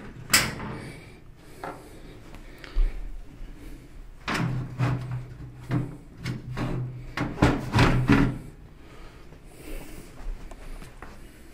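A sharp click, then a run of knocks, scrapes and rubbing between about four and eight seconds in, as a computer case's side panel is worked loose and pulled off, a job the man calls 'hard as hell'.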